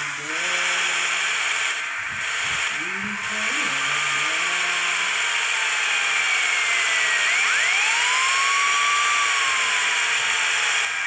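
A bus driving at speed: a steady rush of wind and road noise, with engine hum that shifts in pitch over the first few seconds and a thin whistling whine that rises and slowly falls, climbing sharply again about seven seconds in.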